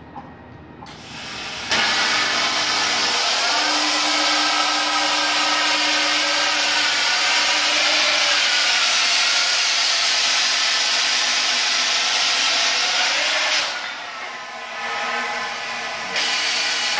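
Plasma cutting torch on a rotary CNC tube cutter: the air comes on with a hiss, then the arc strikes and cuts with a loud, steady hiss for about twelve seconds. The hiss drops to a softer air hiss when the arc stops, and turns loud again near the end.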